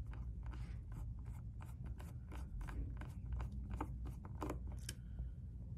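Screwdriver turning a small screw out of an electric skateboard's ESC housing: a run of irregular small clicks and scrapes from the bit working in the screw head, over a steady low rumble.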